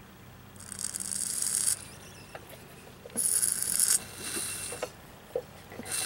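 Evinrude 30 two-stroke outboard turned over by hand, its piston sliding past the open exhaust port: three scraping, hissing bursts about a second long each, with light ticks between.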